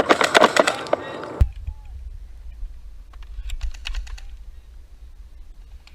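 Rapid clicking in bursts: a dense clatter of clicks that stops abruptly about a second and a half in, then a low rumble of wind on the microphone with another quick run of clicks around the middle.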